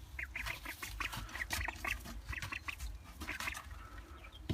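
A group of nervous young Indian Runner ducklings calling, with short high peeps coming several a second.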